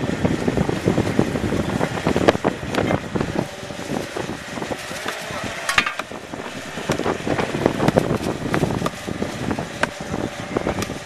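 Wind buffeting the microphone, with irregular knocks of a sledgehammer driving a wooden fence post into sandy ground.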